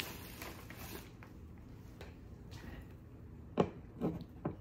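Quiet room tone with three short, soft clicks in the second half, the first the loudest, from a coin and its packaging being handled.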